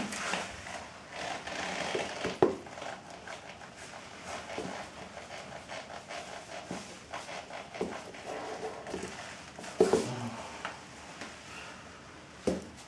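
Muddy patent leather dress shoes shuffling and stepping on sheets of paper, with rustling and a few sharp knocks of the soles, the loudest about ten seconds in.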